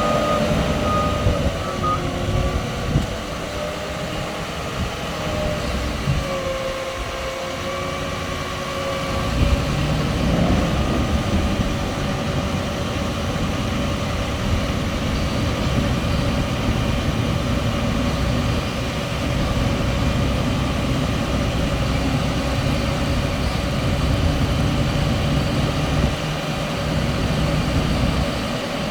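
Tractor and harvesting machinery running steadily in the field: a continuous low engine drone with faint higher tones over it.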